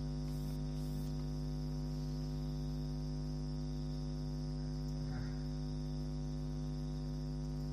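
Steady electrical mains hum with its buzzing overtones, unchanging in level.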